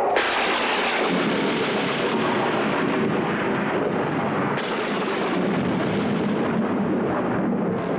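Loud, steady rushing noise of a storm sound effect in an animated film's soundtrack, with a brief sharper hiss a little past halfway.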